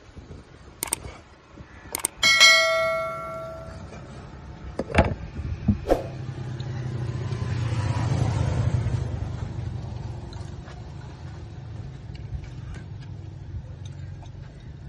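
Steel cleaver chopping small limes on a wooden cutting board: a few sharp chops, with one ringing metallic clang about two seconds in that dies away over a second or so. A passing vehicle's low rumble swells and fades in the middle.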